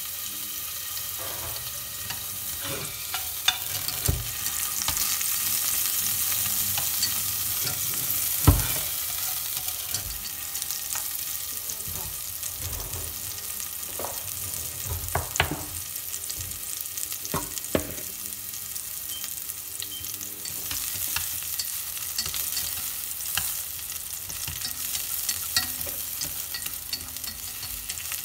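Chopped garlic sizzling in hot cooking oil in a stainless steel pot, a steady hiss. Scattered sharp taps and knocks, the loudest about eight seconds in, and chopsticks stirring the garlic near the end.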